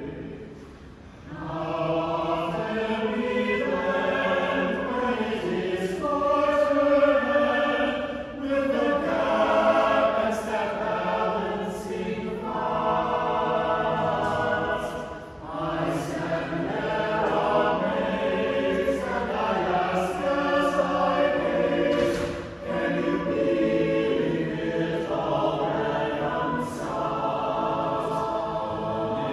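Mixed chamber choir of about fifteen men's and women's voices singing a cappella in several-part harmony. The singing goes in long phrases with brief breaks between them, the voices landing their consonants together.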